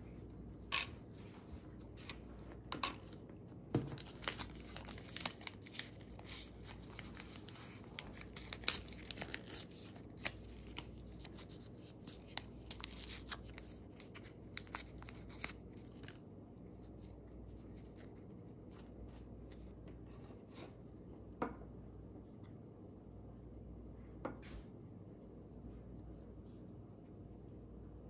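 Protective film being peeled from a hard plastic watch case, with plastic handling noise: dense crackling and sharp clicks through the first half, then only two single taps later on.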